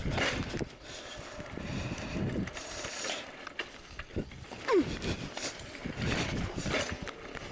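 Mountain bike rattling and clicking as it rides over interlocking paver stones, with scattered knocks and a short falling squeak about halfway through.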